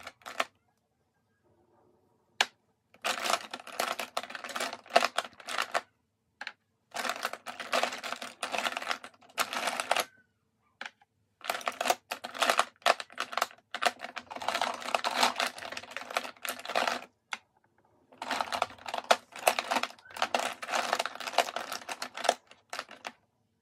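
Small plastic makeup items, lipstick tubes and cases, clicking and clattering against each other as they are rummaged through, in four bursts of rapid clicks a few seconds long with short pauses between.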